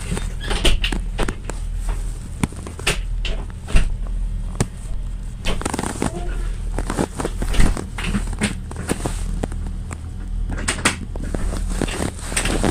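Steady low hum of a stationary train's engine, heard from inside the carriage. Over it come many irregular clicks, knocks and rubbing sounds of a phone being handled close to the microphone.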